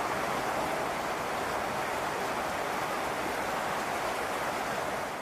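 Steady rush of falling water, an ambience sound effect with an even, unchanging hiss.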